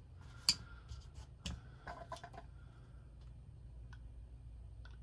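A few sharp clicks and light knocks of small tools and metal gun parts being handled, the loudest about half a second in and another a second later, then fainter scattered ticks, over a low steady hum.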